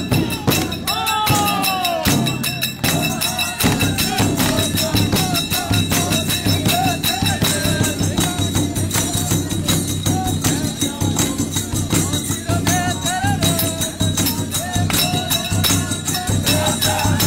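Folk singing over fast, dense jingling hand percussion keeping a steady rhythm.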